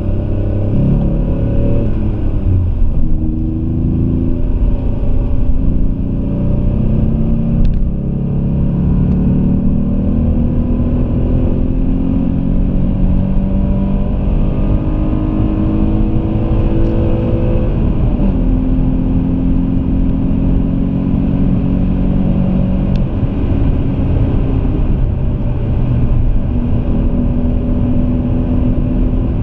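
Alfa Romeo 166's 3.2 V6 heard from inside the cabin, accelerating hard: the engine note climbs, drops about three seconds in, then climbs slowly for some fourteen seconds. It drops again about 18 seconds in and settles to a steady cruise.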